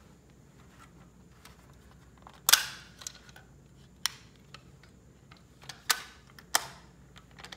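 Sharp plastic-and-metal clicks and clacks from a fire alarm pull station being reset by hand, about six separate clicks, the loudest about two and a half seconds in.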